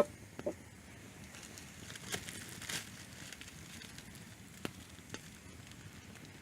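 Hardwood campfire coals crackling, with scattered sharp pops every second or so, after a single loud click at the very start.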